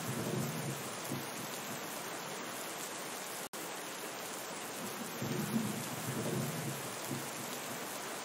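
Steady rain with low rumbles of thunder, one at the start and another about five seconds in. The sound cuts out for an instant about three and a half seconds in.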